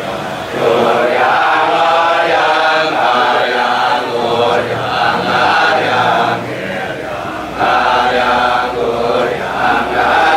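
Balinese Kecak: a large male chorus chanting the interlocking, rapid "cak-cak" rhythm in unison. The chant eases briefly a little past the middle, then swells again.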